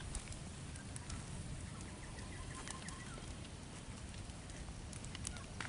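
Faint bird chirps over a steady low rumble, with scattered small clicks and rustles.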